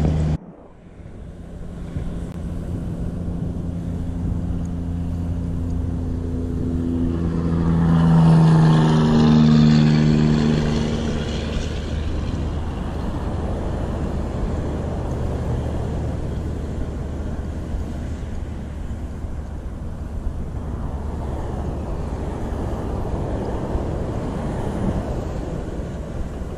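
Road traffic: a steady low engine hum and the noise of passing cars. One vehicle passes close about eight to ten seconds in, rising in pitch and loudness and then falling away.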